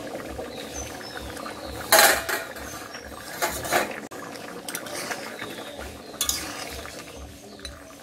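Stainless steel lid lifted off a steel kadai of cooked mutton curry and set down, with metallic clanks, the loudest about two seconds in and more around three and a half and six seconds in. A metal spatula then knocks against the pan.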